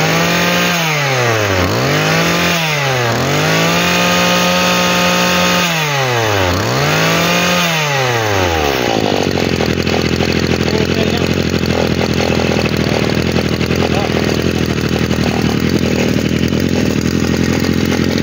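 A Maruyama 26 cc two-stroke brush cutter engine being revved up and down four times by working its carburettor throttle, the pitch climbing and falling each time, then settling to a steady idle about halfway through.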